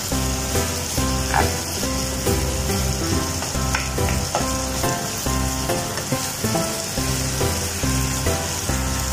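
Beef strips and onions sizzling in a nonstick frying pan while being stirred with a spatula, a steady frying hiss. Background music with a rhythmic bass line plays over it.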